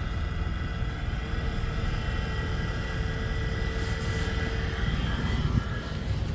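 Rear air-conditioning blower fan motor of a 2008 Toyota Kluger running with a steady whirring hum and a hissing sound. The hiss comes from its new carbon brushes, which have not yet bedded in on the commutator.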